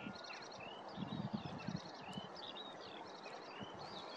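Several small birds singing and chirping: short rising and falling whistled calls mixed with quick repeated trills. A few low bumps come about a second in.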